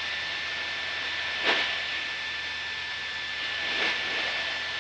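Steady drone of a Cessna Skyhawk's piston engine, propeller and airflow in the cabin during cruise flight, with a thin steady tone above it. Two brief swells of rushing noise come about a second and a half in and again near the end.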